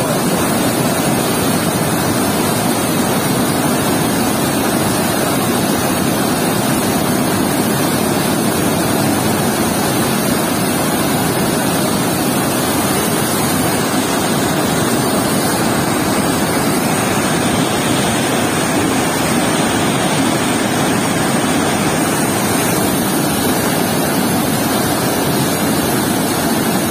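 Water rushing through a weir's sluice gate and churning into whitewater below the concrete pier: a loud, steady roar of turbulent flow.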